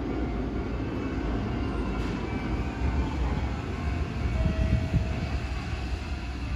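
Hanshin 5700 series electric train arriving along the platform: a rumble of wheels on the rails that grows louder as it comes close, with a thin steady whine over it.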